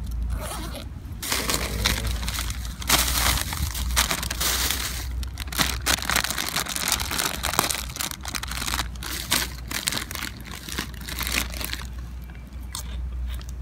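Plastic bag and foil crisp packet crinkling and crackling as they are handled and the packet is torn open, in a dense run of short, sharp crackles.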